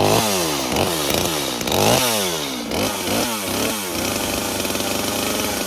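Holzforma G255 45.4cc two-stroke chainsaw revved in a quick series of short blips, each rising sharply and falling back in pitch, then running steadily from about four seconds in. The freshly fitted replacement bar and chain are being run in to break in.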